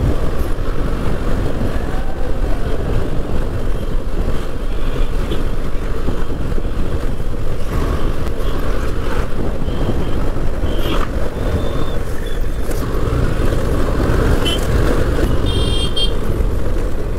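Motorcycle riding noise: heavy wind rumble on the microphone over the bike's engine and the surrounding road traffic. A vehicle horn toots briefly near the end.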